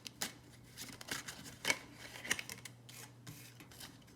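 Tarot cards being shuffled and handled, a series of short, crisp papery swishes and snaps.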